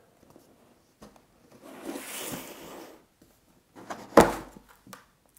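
Cardboard box being opened by hand: a second or so of cardboard rustling and scraping, then a single sharp knock about four seconds in as the flap comes free, with a few small clicks of handling around it.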